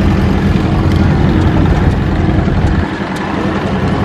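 A vehicle engine idling close by, a steady low rumble that drops away noticeably about three seconds in.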